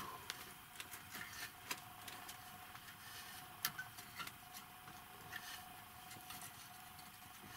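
Quiet room tone with a faint steady high hum and scattered light clicks and small knocks, one a little louder about three and a half seconds in.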